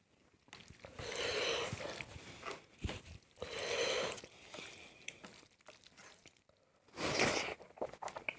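A person eating close to the microphone: chewing and crunching bites, with three louder noisy bursts, each about a second long, near the start, in the middle and near the end.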